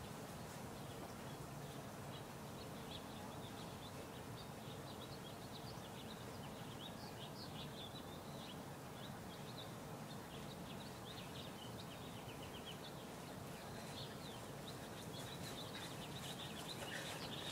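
Faint, steady outdoor background noise with birds chirping in quick, high calls through most of it.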